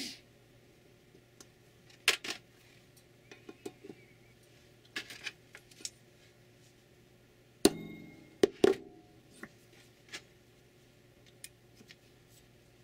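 Center punch marking hole centres on an aluminium heatsink: scattered sharp metallic clicks and taps as the punch is set on the metal, with three louder strikes in quick succession about two-thirds of the way through.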